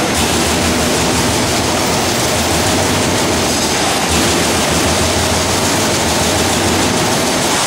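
27.5-ton Trumpf TC500R CNC turret punch press punching sheet metal in a rapid continuous run of strokes, a dense steady clatter.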